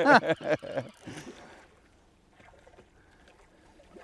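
A man's voice trails off about a second in; after that there is only faint background noise.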